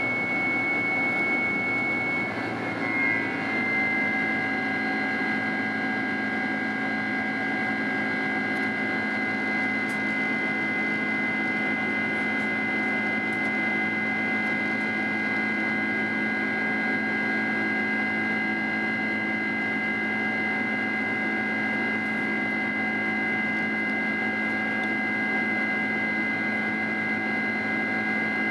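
Boeing 767-300ER's General Electric CF6-80C2 turbofan engines heard from inside the cabin while the airliner climbs: a steady drone with a high whine. The whine steps down slightly in pitch about three seconds in.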